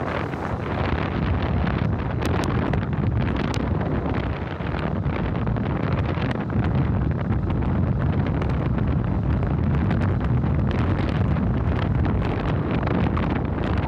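Wind buffeting the microphone on a moving motorcycle, over the steady running of a Yamaha FZS FI V2's single-cylinder engine at cruising speed.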